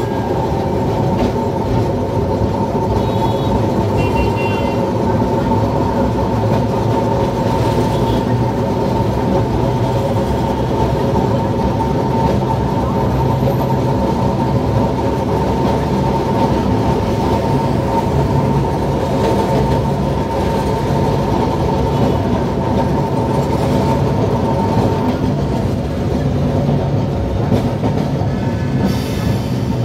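Kolkata tram running on street rails, heard from the driver's cabin: a steady whine from its motors and gears over the rumble of wheels on track. The whine fades about 25 seconds in.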